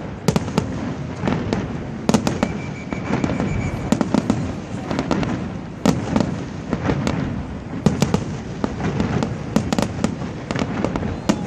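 Fireworks display: a rapid, irregular series of sharp bangs from bursting shells, with a short high whistle a little over two seconds in.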